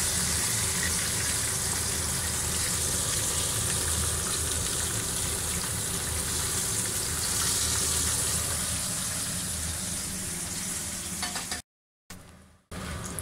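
Corn-floured horse mackerel frying in hot sunflower oil in a pan, a steady sizzle, as the fish are turned with metal tongs. The sizzle cuts off suddenly near the end.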